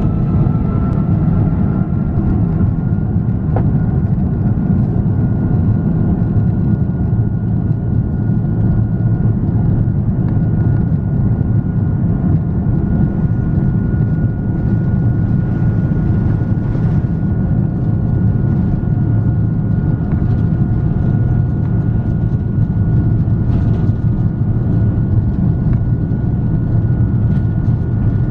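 Airbus A330-243's Rolls-Royce Trent 772 turbofan engines at takeoff thrust during the takeoff roll, heard from inside the cabin: a loud, steady rumble with a high engine whine that rises slightly in the first couple of seconds and then holds.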